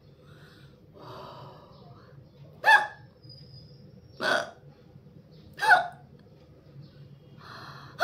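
A woman hiccuping: three sharp hiccups about a second and a half apart, with another starting right at the end, and quieter breathing between them.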